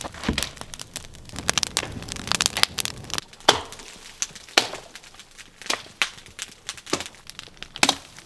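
Spruce branches being handled and broken in snowy brush: rustling and crunching of boughs, then sharp cracks about once a second as branches snap.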